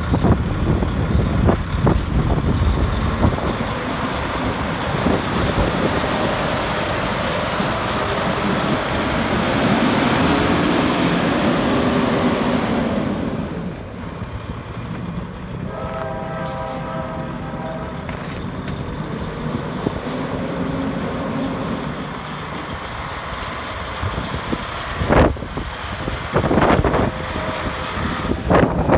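Diesel engine of a 2012 Kenworth T800 semi tractor running at idle, a steady low rumble that is louder in the first half. A brief horn-like tone sounds about halfway through.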